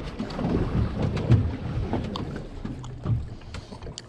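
Wind buffeting the microphone over water slapping against a small boat's hull, with a few light knocks.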